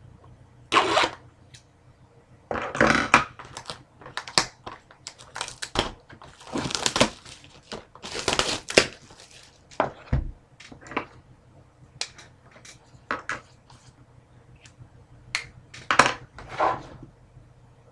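Plastic wrapping crinkling and tearing and cardboard being handled in irregular bursts, with short clicks in between, as a sealed trading-card box is opened.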